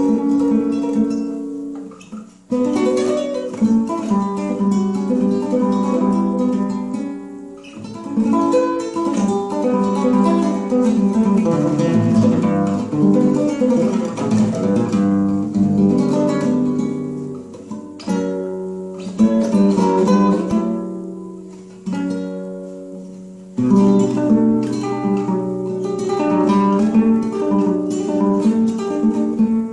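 Solo nylon-string classical guitar played as an improvisation: fingerpicked melodic runs and chords, with a few brief breaks between phrases.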